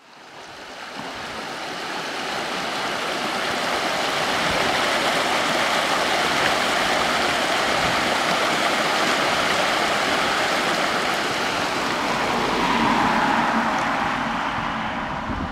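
Small mountain stream running over rocks beneath a plank footbridge: steady rushing water that fades in over the first few seconds.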